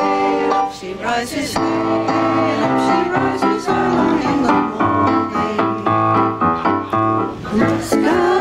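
Choir singing with electric keyboard accompaniment, held chords changing steadily.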